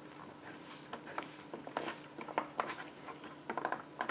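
Light, scattered clicks and taps of plastic as gloved hands press the clear window panel of an air fryer oven door into its plastic frame, more often in the second half.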